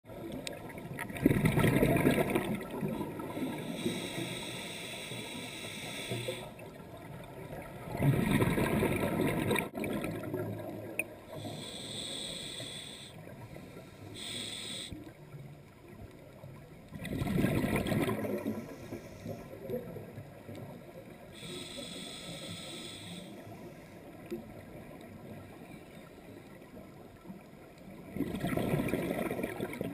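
Scuba diver breathing through a regulator underwater. A burst of exhaled bubbles comes four times, about every eight to ten seconds, with a softer hiss of inhalation through the regulator between them.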